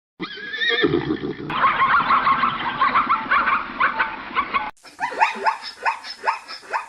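Animal calls from two recordings: first a wavering, trembling call that turns into dense chattering, then, after a sudden cut near the end, a run of short calls, each falling in pitch, about two to three a second.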